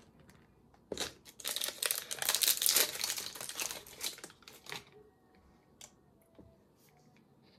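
Packaging crinkling and being torn open by hand: a dense crackle that starts about a second in and lasts nearly four seconds, followed by a few light clicks.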